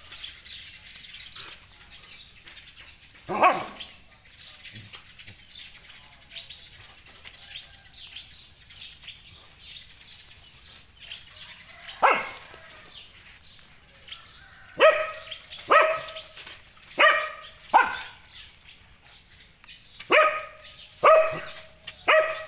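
Dog barking: two single barks several seconds apart, then a run of about seven short barks, roughly one a second, in the last part.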